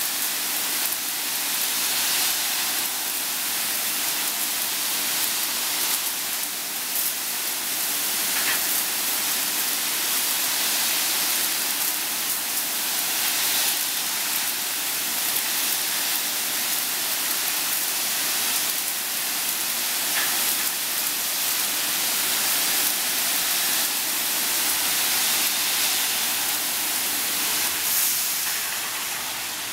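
High-pressure water jets spraying inside a railway bogie and wheelset washing machine: a steady hiss of spray, with a faint steady hum underneath.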